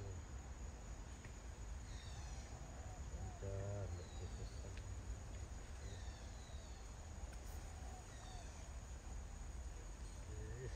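Insects chirping steadily, with short high descending chirps recurring every couple of seconds.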